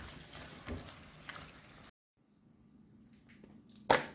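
Faint kitchen handling sounds with a few light clicks, cut off abruptly about two seconds in; then quiet, with one sharp knock near the end.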